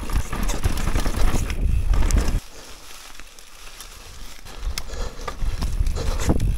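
Downhill mountain bike riding on a rough dirt trail: wind buffeting the microphone and the bike rattling and knocking over roots and rocks. The rumble drops away suddenly about two and a half seconds in for about two seconds, then builds again.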